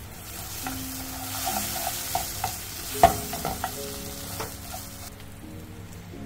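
Beaten egg sizzling in a hot nonstick frying pan while wooden chopsticks scramble it, clicking and tapping against the pan, with one sharper knock about three seconds in. The sizzle stops about five seconds in.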